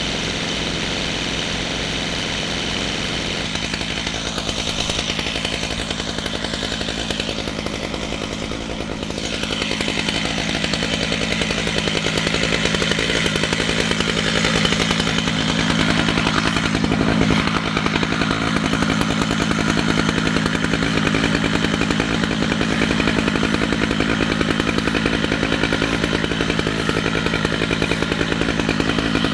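Chainsaw running in a chainsaw mill, ripping lengthwise through a red oak log. Its pitch shifts in the first few seconds, then it runs louder and steadier from about ten seconds in.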